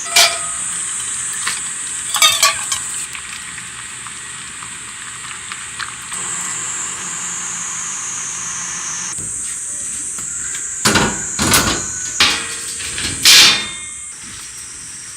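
A few sharp knocks, two early on and a louder cluster near the end, over a steady high-pitched hiss.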